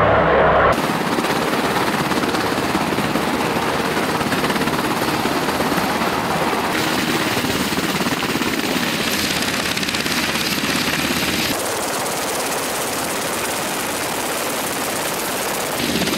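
Helicopter rotor and engine noise, including a UH-60 Black Hawk hovering low close by. It runs steadily, with abrupt shifts in level and tone several times.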